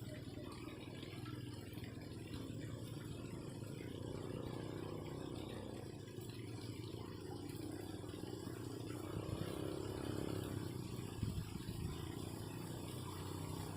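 Steady low rumble of flowing water.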